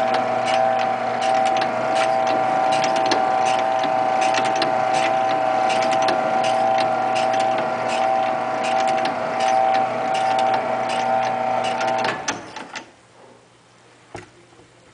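Cutaway Indian motorcycle engine display model being driven by its mechanism: a steady motor whine with quick, irregular clicking of the moving parts. It stops about twelve seconds in, leaving a couple of faint clicks.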